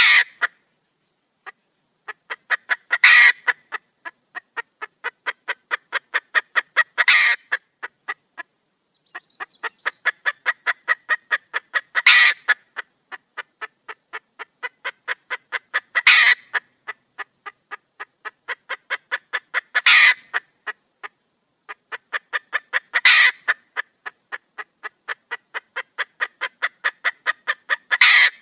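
Wild red junglefowl hen calling: runs of short clucks, about four a second, that grow louder and end in a loud drawn-out squawk. The pattern repeats roughly every four seconds. This is the hen's call to attract a male.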